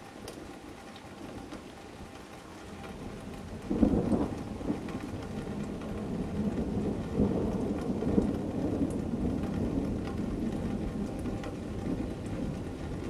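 Thunder with rain falling: a sudden loud clap about four seconds in, then a long low rumble that swells again midway and rolls on.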